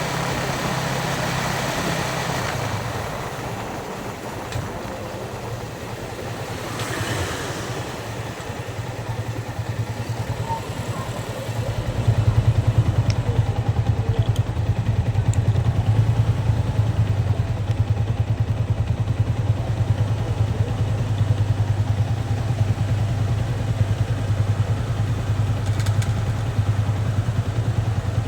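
Yamaha Vixion's single-cylinder four-stroke engine running at low revs. Road and wind noise fade over the first few seconds; about twelve seconds in, the engine note becomes louder and steady, with a rapid pulsing beat.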